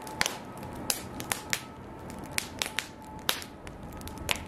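Wood fire crackling in an open steel barbecue grill: sharp, irregular pops of burning wood planks over a steady hiss of flame.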